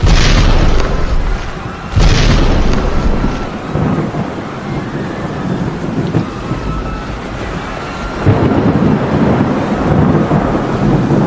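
Thunderstorm: two sharp claps of thunder about two seconds apart, each rolling off into rumble, over steady heavy rain, with another loud roll of thunder about eight seconds in.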